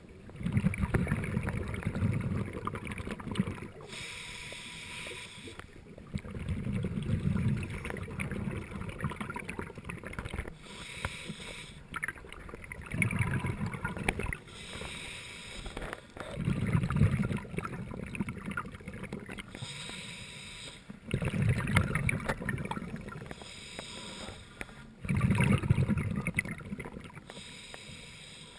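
Scuba regulator breathing underwater: a short hissing inhale, then a low rumble of exhaled bubbles, repeating about every four seconds.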